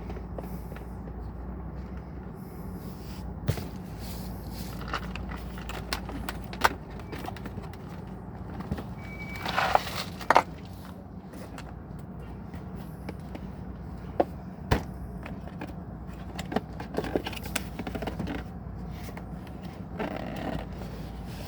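Scattered clicks, taps and scrapes of hand tools and plastic trim parts being handled while a car's power window master switch is unscrewed from its door panel, with a short burst of scraping about ten seconds in. A steady low hum runs underneath.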